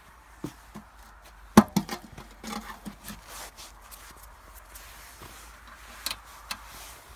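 Footsteps and a run of knocks and clunks from a small engine being lifted and carried by hand. The loudest knock comes about a second and a half in, with a quick cluster after it and two more knocks near the end.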